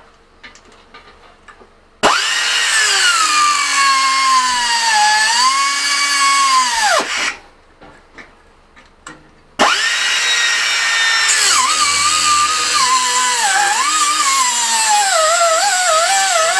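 Angle grinder with a cut-off wheel cutting a piece of metal held in a bench vise. It runs twice: first from about two seconds in to about seven, then winding down; then again from near the middle to the end. Its whine drops in pitch and wavers as the wheel bites into the metal. Small clicks and knocks of handling come before and between the cuts.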